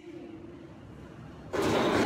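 A faint steady hum, then about one and a half seconds in a sudden loud crash and clatter that carries on: a metal wall sign being struck by a person's cartwheeling feet.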